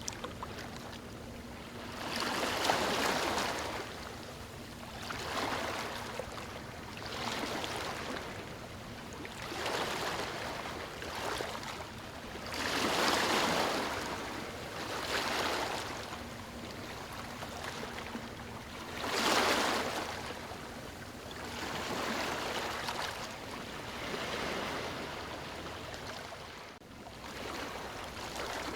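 Small waves washing and splashing onto a beach in repeated surges every two to three seconds, each swelling and fading, with the strongest about three, thirteen and nineteen seconds in.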